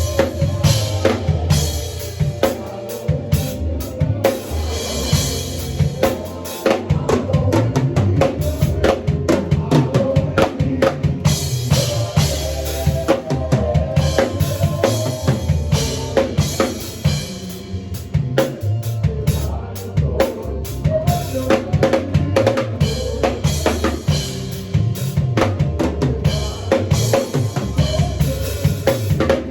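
A drum kit played in a fast, busy pattern of kick drum, snare and rimshot hits. Sustained pitched notes from another instrument sound underneath.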